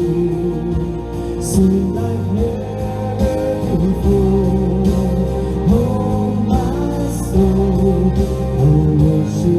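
A song with singing over guitar accompaniment.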